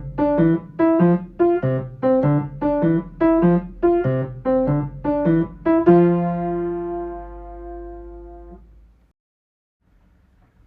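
Piano playing a simple tune over single bass notes, about two notes a second, ending on a held chord about six seconds in that rings and fades away within three seconds.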